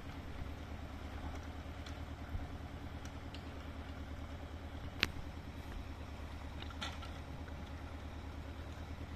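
An engine running steadily, with one sharp knock about five seconds in and a fainter clatter shortly after.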